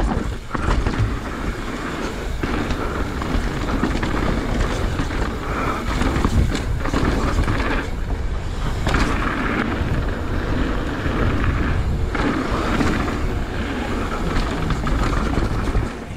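Mountain bike running down a dirt trail, heard from a camera mounted on the rider or bike: a continuous rush of tyre and wind noise with irregular knocks and rattles from the bike over bumps.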